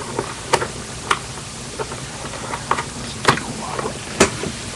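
Handling noise: a few sharp clicks and knocks over a steady hiss, as a USB cable is fumbled into a port on the back of an iMac.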